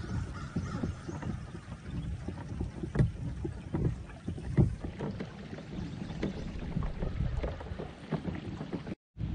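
Kayak moving along the water, with water sloshing against the hull, scattered small knocks and a steady low rumble.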